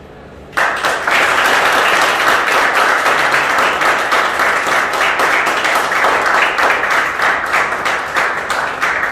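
Applause from a small group of people clapping, starting suddenly about half a second in and carrying on steadily.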